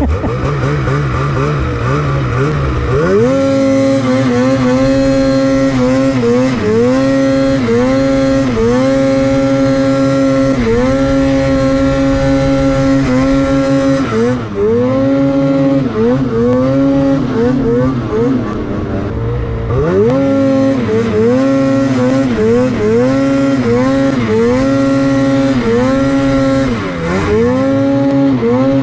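Two-stroke 850 E-TEC engine of a Lynx Boondocker snowmobile, heard from the rider's seat, revving up and easing off over and over as the throttle is worked. Its pitch rises and falls every second or two, and the note takes over about three seconds in.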